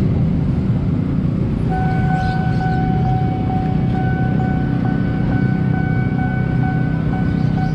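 Railway level-crossing warning alarm sounding, a steady ringing tone with short regular breaks, starting about two seconds in. Under it, the running engines of motorcycles and auto-rickshaws crossing the tracks. The alarm is the signal that a train is approaching and the barrier is about to close.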